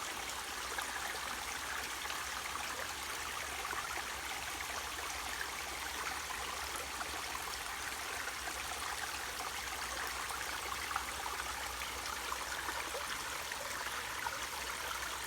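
Waterfall on a mountain stream, water rushing and splashing steadily.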